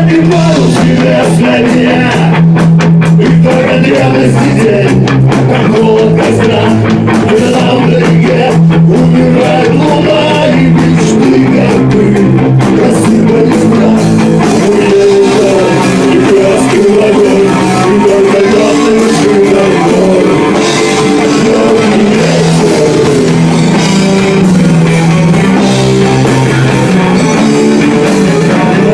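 Rock music: a band with guitars, bass and drums playing an instrumental passage, a lead line wavering in pitch over steady lower notes.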